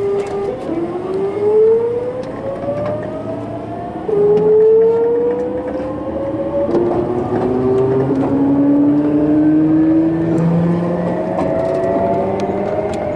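Hitachi GTO-VVVF inverter and traction motors of a Sotetsu New 7000 series electric train accelerating from a stop: a steady whine, then a series of rising whines that jump to a new pitch several times as the inverter changes mode, over the rumble of the running train.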